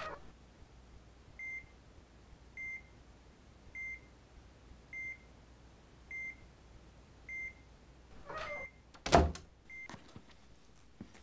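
A short, high electronic beep repeating evenly about every second and a bit, eight times in all. A loud thud lands about nine seconds in.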